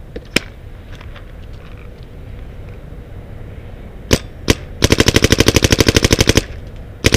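Dye DM12 electropneumatic paintball marker firing paintballs: two single shots about four seconds in, then a rapid stream of about a dozen shots a second for a second and a half, and another stream starting right at the end.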